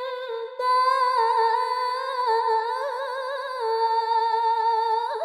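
A woman's voice reciting the Quran in the melodic tilawah style, holding one long ornamented note with wavering turns on the phrase 'ash-shahadata lillah'. There is a brief break about half a second in.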